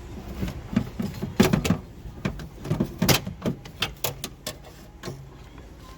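Irregular clicks, knocks and rattles from a car door lock actuator being handled and worked free of the door, most of them packed into the middle few seconds.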